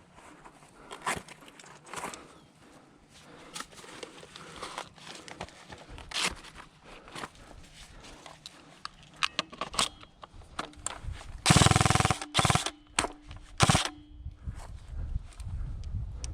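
Airsoft guns firing: scattered single shots and short bursts, then a loud burst of rapid fire from a nearby airsoft rifle about eleven and a half seconds in, followed by two more short bursts.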